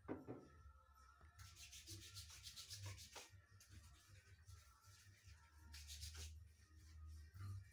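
Faint scratchy rubbing noise, about two seconds in quick strokes and then a shorter spell about six seconds in, over a low hum.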